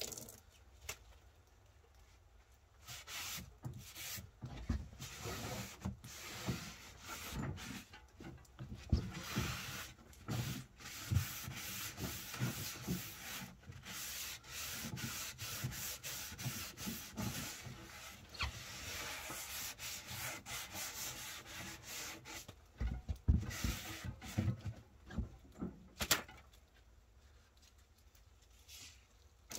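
A cloth rag wiping down the wooden body of a 7½-inch-gauge miniature locomotive: irregular rubbing and scuffing strokes, with a few knocks near the end.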